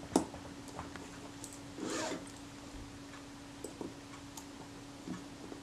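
Small metal handling sounds as a tiny screw is fitted into a camera's metal base plate: a sharp click near the start, a short scrape about two seconds in, then a few faint ticks. The screw is reluctant to go in because its re-tapped hole is slightly off centre.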